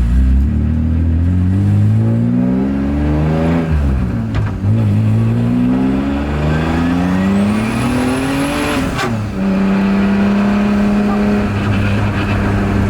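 Turbocharged BMW E36 M3 straight-six accelerating hard under full throttle. The revs climb, break briefly at a gear change about four seconds in, and climb again for a long second pull while a high whistle rises with them. About nine seconds in the driver lifts off, and the engine settles to a steady cruising note.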